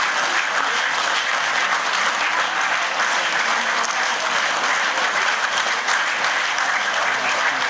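Crowd applauding: many hands clapping in a dense, steady patter.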